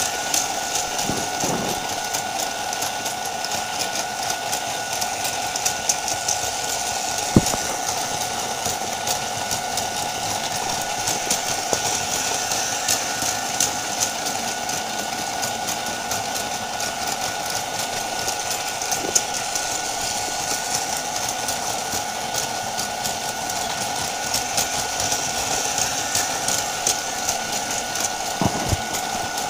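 Plarail battery-powered toy trains running on plastic track, their small motors whirring and wheels clicking, while the Kan-Kan level crossing set's electronic warning bell rings on and on because the crossing never opens. A few light knocks come about a second and a half in, around seven seconds in, and near the end.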